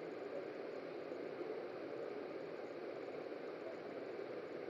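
Steady, even background hiss with no distinct event.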